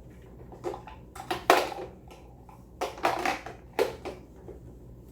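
Hard plastic clicks and knocks from a handheld vacuum cleaner's dust container being fitted back onto the body, several irregular knocks with the loudest about a second and a half in.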